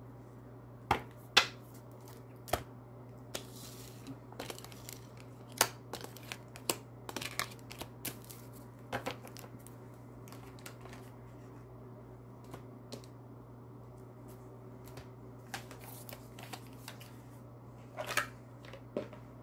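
Oracle cards being gathered up and handled: scattered taps, slides and flicks of card stock on a hard tabletop, busiest in the first half and again near the end, over a steady low hum.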